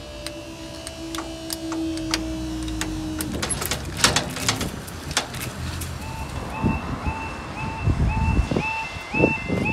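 Level-crossing yodel alarm starting about six seconds in: a two-pitch warble repeating about twice a second, warning that the barriers are about to come down. Before it come a few sharp clicks.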